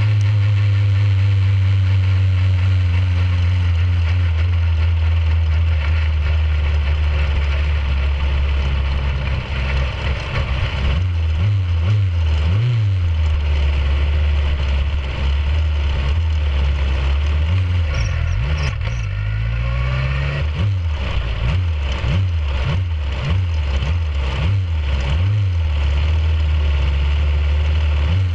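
Formula 2000 race car's four-cylinder engine running at low, steady revs, heard close from the car. From about eleven seconds in comes a series of short throttle blips, each rising and falling quickly in pitch, before it settles back to a steady low run near the end.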